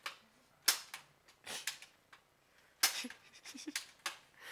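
Spring-plunger Nerf dart gun being fired over and over: a string of sharp pops, two of them louder, with lighter clicks in between.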